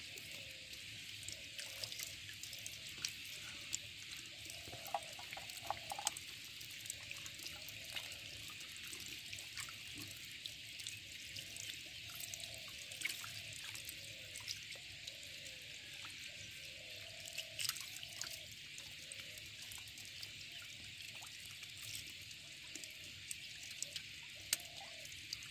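Faint water dripping and trickling from a wet fishing net in shallow water, with small plinks about once a second and scattered light ticks and splashes as small fish are handled and scooped into a steel bowl.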